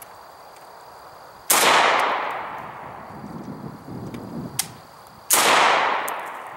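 Two shots from an I.O. Hellpup AK-47 pistol in 7.62x39 (Wolf 124-grain ammo), about four seconds apart, each followed by a long fading echo. The gun is malfunctioning: the bolt carrier doesn't come far enough back to cycle, so it fails to feed the next round.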